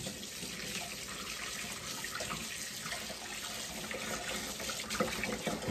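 Kitchen tap running steadily into a sink while freshly thinned carrots are washed under the water, with a few light knocks.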